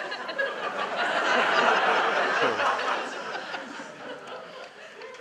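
Audience laughing, swelling to a peak about two seconds in and then dying away.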